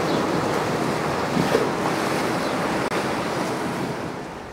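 Wind on the microphone over choppy canal water churned by boat wakes, a steady rushing that fades down near the end.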